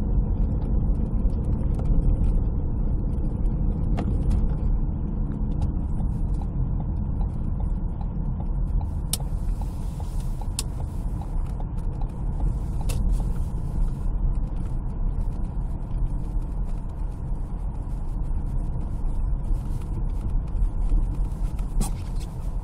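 Car cabin noise while driving on a snow-packed road: a steady low rumble from the engine and tyres, with a few sharp clicks and a run of light regular ticks in the middle.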